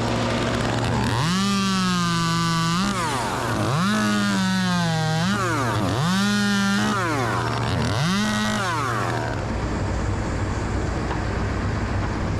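Chainsaw revved up four times in bursts of about a second to a second and a half, its pitch sagging a little under load as it cuts, dropping back between bursts. It stops about nine seconds in, leaving a steady low engine rumble.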